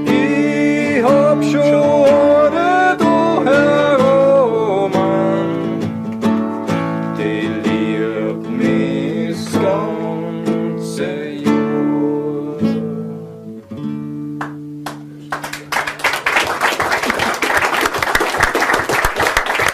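A voice singing a song to strummed acoustic guitar, which ends about fourteen seconds in and is followed by audience applause.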